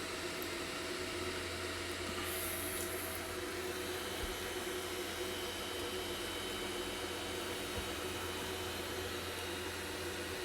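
Belt 3D printer running: a steady whir of cooling fans and stepper motors with a constant low hum and several steady tones.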